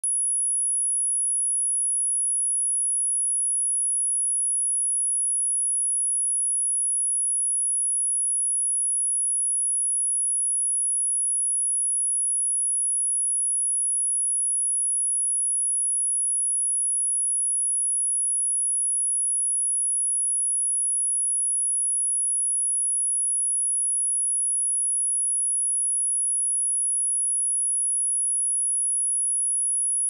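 A pure sine-wave test tone at 10,287 Hz, a single high-pitched whistle held at one steady pitch and level, used to test speakers and headphones and to shake water and dust out of a speaker.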